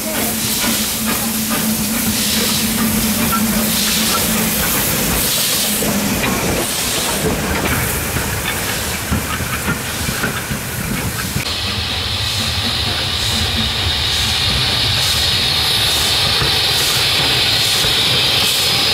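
Steam locomotive No. 92203 Black Prince, a BR Standard Class 9F 2-10-0, hissing steam. About two-thirds of the way through, the sound changes to the locomotive moving along the track with a regular beat.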